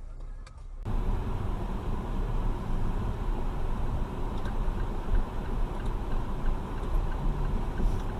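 Steady road and engine noise of a moving car heard from inside the cabin through a dashcam, a low rumble with some hiss that starts abruptly about a second in.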